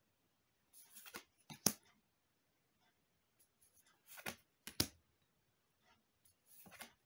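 Magic: The Gathering trading cards sliding against one another as they are moved one at a time through a hand-held stack: faint swishes with light flicks, three times, about a second in, around four seconds in and near the end.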